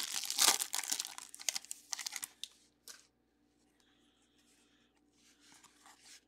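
Foil wrapper of a baseball-card pack being torn open and crinkled, a dense crackle for about two and a half seconds, then a single click. After a near-silent pause, faint rustling of cards being handled near the end.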